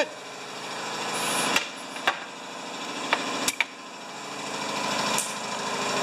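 A steady mechanical running noise that swells in level twice, broken by four sharp knocks, the clearest about two and three and a half seconds in.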